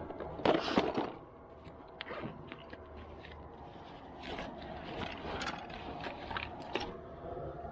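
Gear handling: a clear plastic tackle box set down on rocks with a clatter about half a second in, then a backpack's flaps being pulled open and its contents rummaged through, with scattered short scrapes and clicks.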